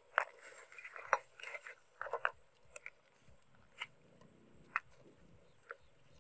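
Metal tongs clinking against a stainless steel pot and the crab shells in it as the crabs are turned. Several sharp clinks in the first two seconds or so, then single clicks about once a second.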